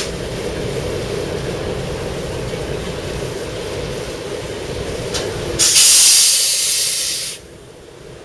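Class 08 diesel shunter running with a steady low rumble; about five and a half seconds in, a loud hiss of released pressure lasts for about two seconds and cuts off suddenly, and the rumble is much quieter after it.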